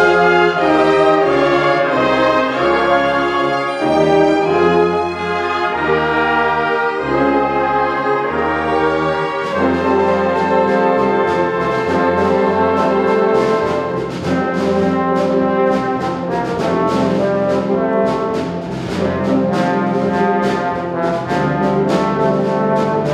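Live orchestra of strings, woodwinds and brass playing sustained, brass-heavy chords. About ten seconds in, a steady rhythmic beat of sharp accents joins.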